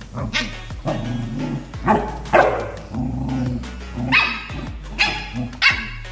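Corgi barking: a string of about eight short, sharp barks, over background music.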